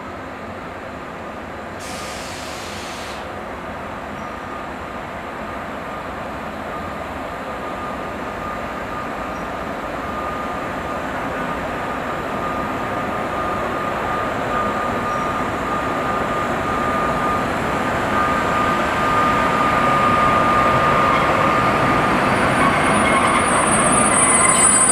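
Renfe class 251 electric locomotive hauling a long container freight train, approaching and growing steadily louder until it draws level near the end. A steady high tone rides over the rumble of the train, and sharper high squealing tones come in near the end as the locomotive passes.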